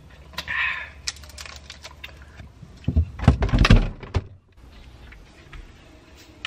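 A short sip from a small drink bottle about half a second in, then scattered clicks and knocks of handling, building to a cluster of heavy thumps and clatter about three seconds in as a kitchen door is opened.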